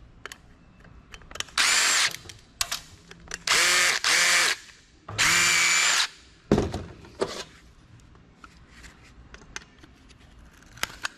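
Power drill-driver running in three short bursts, backing screws out of a computer case, followed by a few knocks and light clicks of metal parts.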